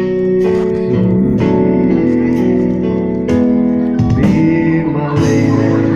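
Instrumental music: a slow ballad's introduction played on keyboard, with sustained chords under a melody line.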